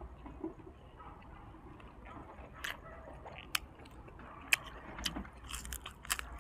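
Close-up chewing and crunching of fried dried squid, with sharp crackly bites scattered through, more of them in the second half.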